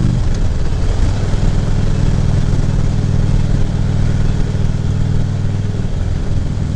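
Harley-Davidson V-twin motorcycle engine running steadily. Its note drops right at the start, then holds.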